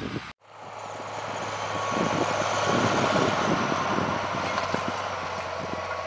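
Large farm tractor's diesel engine running steadily under load while pulling a multi-furrow reversible plough, with irregular low thuds over it. The sound cuts out for a moment just after the start, then fades back up.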